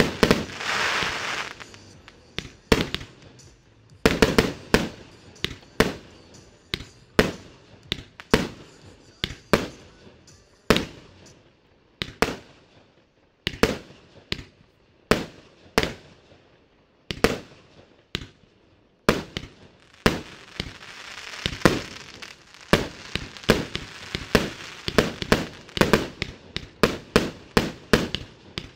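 A 150-shot, 30 mm firework cake (Triplex TXB366 Action) firing a steady series of sharp bangs, about one to two a second. A fizzing crackle fills the gaps near the start and again about three-quarters of the way in.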